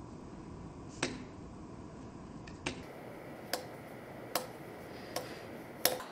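Fingers tapping on a sheet of paper on a wooden tabletop: about six sharp taps, irregular at first and then coming steadily closer together.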